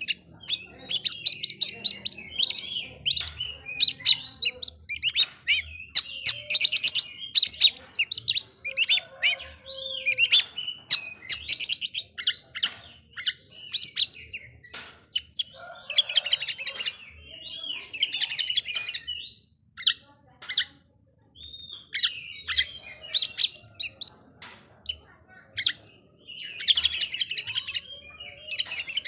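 Oriental magpie-robin (kacer) singing in bursts of fast, high, chattering notes with short pauses between phrases. This is the kind of song used to provoke other magpie-robins into singing.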